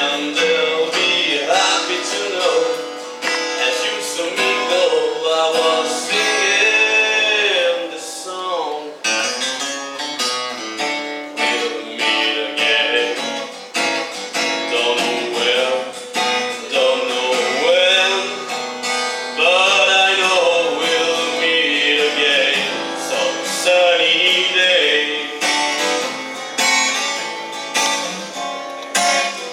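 Live song: a singer's voice over strummed acoustic guitar.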